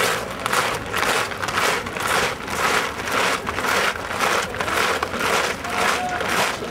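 Many guardsmen's boots crunching on gravel in step as a marching band marches, about two steps a second in an even rhythm.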